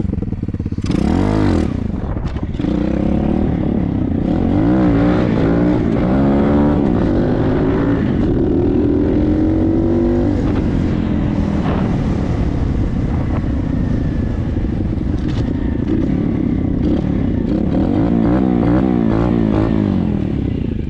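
Hawk 125 dirt bike's single-cylinder four-stroke engine running and being revved, its pitch climbing for several seconds, dropping back sharply about halfway through, then rising and falling again near the end. There is a short loud burst of noise about a second in.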